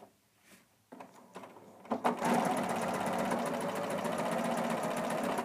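Electronic sewing machine stitching a seam at a steady speed, starting about two seconds in and stopping near the end.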